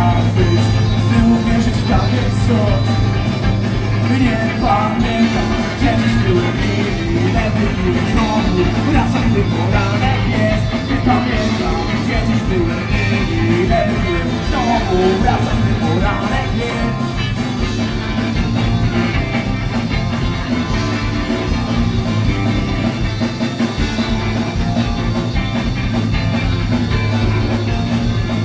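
Punk rock band playing live and loud: electric guitars, bass and drums, with a singer and a violin over them.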